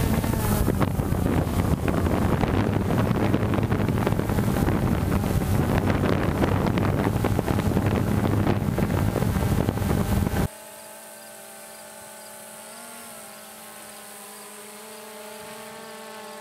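Quadcopter drone's motors and propellers running: loud with wind rush as picked up on the drone itself, then about ten seconds in dropping abruptly to a much quieter steady hum of the hovering drone heard from the ground, with a brief rise in pitch.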